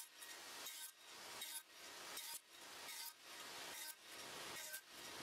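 Faint table saw blade cutting repeated kerfs across the end of a cedar board to form a tenon, a rasping cut about every 0.8 seconds with short breaks between passes.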